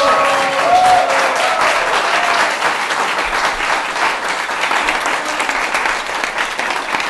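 Audience applauding, dense clapping throughout, with a few voices calling out over it in about the first second.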